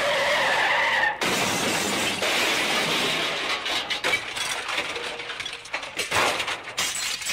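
Onboard audio of an electric radio-controlled model Cessna 182 coming down hard on a dirt strip. The motor's whine falls away over the first second, then a rough, hissing rustle with a few knocks follows as the plane comes to rest nose-down in the dirt.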